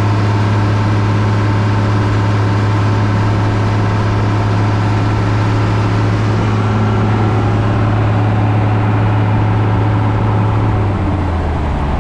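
Boat engine running steadily while towing a shrimp trawl net, over the rush of the churning wake. Near the end the engine note drops a little lower as it eases off.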